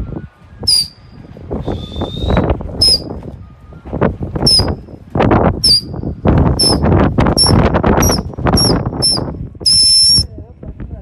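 A person whistling shrill, breathy blasts, about a dozen short ones that each drop at the end, the last one held longer, over wind rumbling on the microphone.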